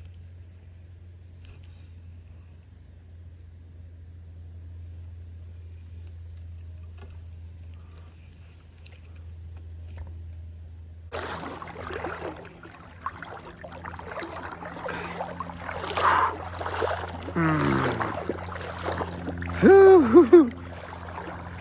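Steady high-pitched drone of insects such as crickets. About halfway through, water starts sloshing and splashing irregularly around a person wading through a creek, with gurgling swirls growing louder near the end.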